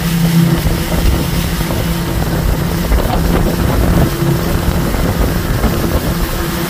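Motorboat engine running steadily under way, a constant drone, with wind on the microphone.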